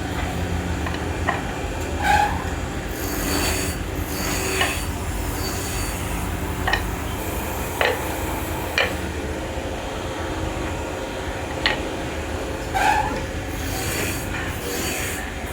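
Woodworking machinery running with a steady hum, and sharp clicks and knocks at irregular moments, about eight of them.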